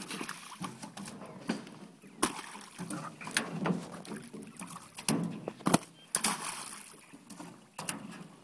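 Water splashing and slapping as live fish are grabbed one by one out of the shallow water of a fish-transport truck's tank and thrown out. There are a string of sudden sharp splashes about a second apart, with sloshing in between.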